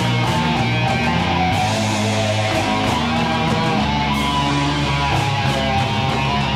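Live rock music from a band, led by strummed electric guitar over bass, steady and loud.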